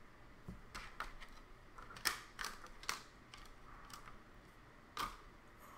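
A series of quiet, irregular sharp clicks and taps, about eight to ten in all, the loudest about two seconds in.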